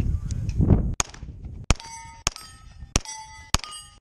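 Pistol shots at steel plates, each shot followed by the ringing ping of the struck plate: five shots about two-thirds of a second apart, then a sixth right at the end, the stop plate of a timed Steel Challenge string.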